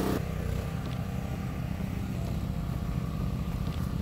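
Small gasoline engine of a log splitter running steadily at a constant speed, with an even low pulsing.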